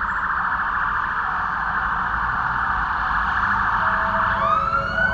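Steady, dense high buzzing drone, joined about four seconds in by a tone that glides upward and levels off.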